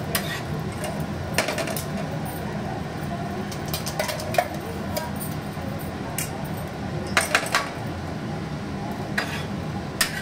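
Metal spatula scraping and tapping against a flat griddle (tawa) as pav buns are turned and pressed while toasting, in scattered short clicks over a steady low hum.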